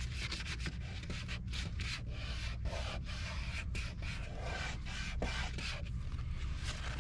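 An alcohol prep wipe is scrubbed quickly back and forth over the car's front emblem mounting area, about three strokes a second. It is cleaning the surface before the badge is stuck on with double-sided tape.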